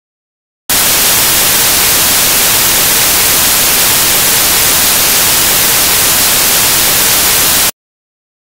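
Loud steady white-noise hiss like radio static, starting abruptly about a second in and cutting off abruptly near the end.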